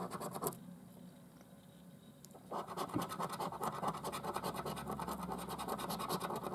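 A coin scraping the silver coating off a paper scratch card in quick, rapid strokes. The scratching stops about half a second in and starts again about two seconds later.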